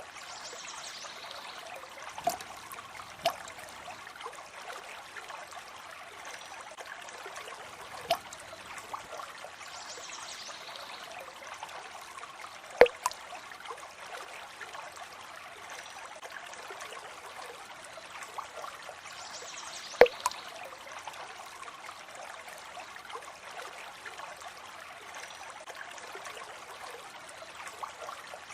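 Water trickling steadily, with single drops landing sharply every few seconds. The loudest drops fall a little before halfway and about two-thirds of the way through.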